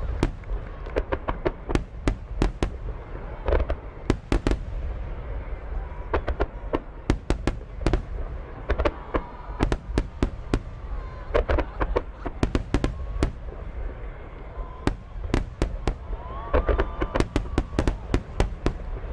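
Fireworks going off: sharp bangs and crackles in rapid clusters, a new cluster every couple of seconds.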